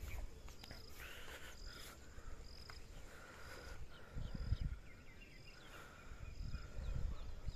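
Outdoor ambience with a short, high-pitched chirp repeating about once a second and fainter chirping beneath it. Low rumbles on the microphone come and go, strongest about halfway through and near the end.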